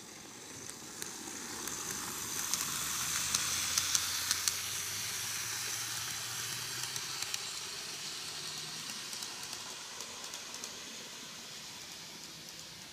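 N-gauge model of a Meitetsu EL120 electric locomotive running past on curved track: a hissing whir of its motor and wheels on the rails, with a faint low hum, that swells to a peak about four seconds in and then slowly fades. Light clicks are scattered through it.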